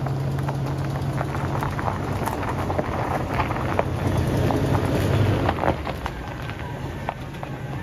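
Toyota Tundra pickup driving slowly on a dirt forest track, its tyres crackling and snapping over dry twigs, leaves and gravel above a steady low engine hum. The crackling is densest about five seconds in and thins out after about six seconds as the truck slows.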